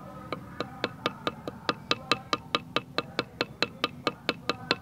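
A stone pounding young leaf shoots against a hard surface to mash them: sharp, even knocks about four to five a second, starting just after the start.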